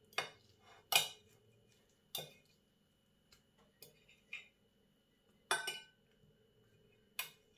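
Metal fork and knife clinking and scraping against a porcelain plate while cutting a white sausage into pieces. The clinks come singly, about seven in all at uneven gaps, the loudest about a second in and again a little past halfway.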